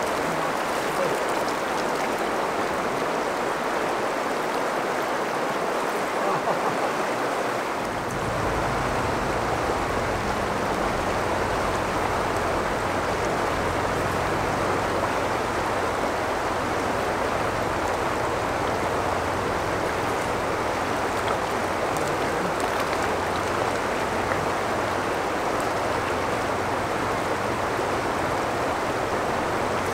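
Steady rush of river current, an even wash of moving water. A low rumble joins in about eight seconds in.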